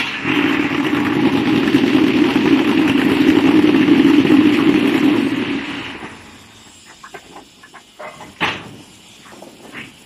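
A machine with an engine or motor running steadily and loudly, dying away about six seconds in, followed by scattered light clicks and one sharp knock.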